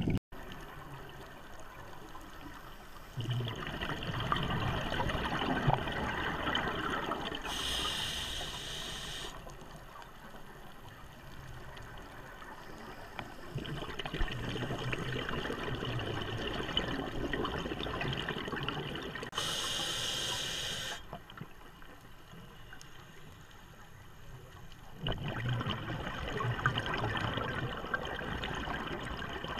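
Scuba diver breathing through a regulator underwater: three long bubbling exhalations, with a short hiss of inhalation between them, repeating about every 11 seconds.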